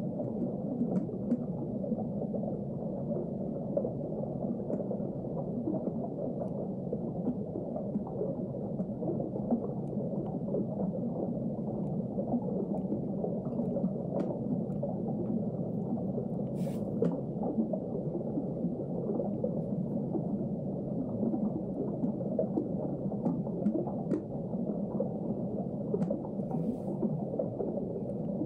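Steady, muffled underwater rumble and gurgle with no high end, broken by a few faint scattered ticks.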